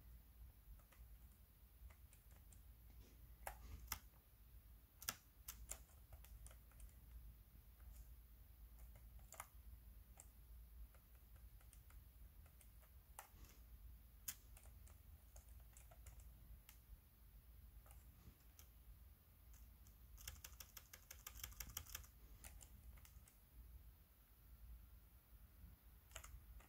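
Computer keyboard keys tapped now and then in single sharp clicks, with a quick run of rapid taps about twenty seconds in.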